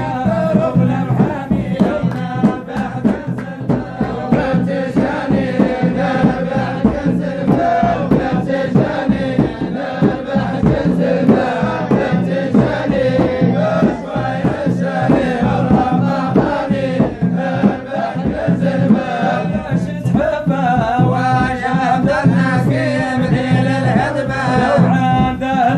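A group of men chanting a Sufi madih praise song in unison, with a hand-struck frame drum keeping a steady beat.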